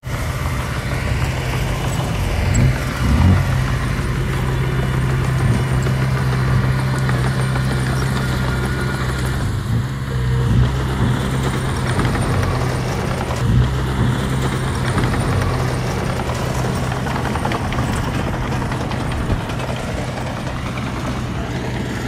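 Heavy-equipment diesel engine running steadily, with a few brief louder knocks about three seconds in and again a little past the middle.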